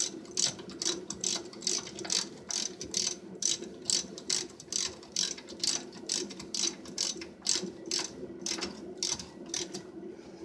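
Hand socket ratchet tightening brake caliper mounting pins. Its pawl clicks in short runs, repeating about two to three times a second as the handle is swung back and forth.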